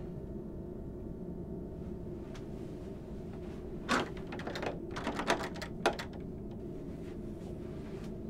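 A door being opened: a knock about four seconds in, then a quick run of latch and handle clicks about a second later, over a steady low room hum.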